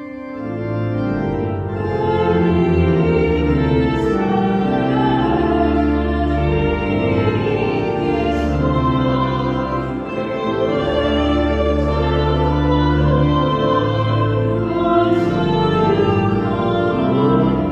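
The memorial acclamation of the Mass, sung with organ accompaniment: singing over held organ chords.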